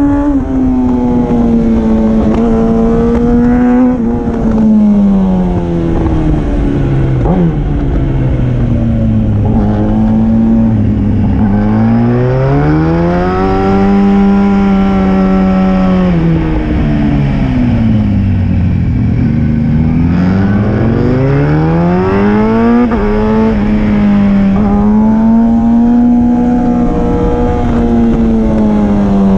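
Sport motorcycle engine heard from the rider's helmet on a mountain road, its revs falling off, climbing again and dropping several times as the throttle is opened and closed through the bends, with wind noise underneath.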